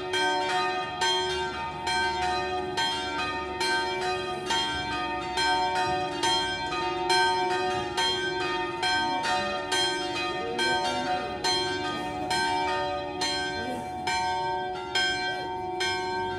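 The three smallest bells (the 4th, 5th and 6th) of a six-bell Italian church peal swinging full circle 'a distesa', struck in a continuous uneven pattern of about three strokes a second, each tone ringing on under the next. The ringing is the first call to the weekday evening mass.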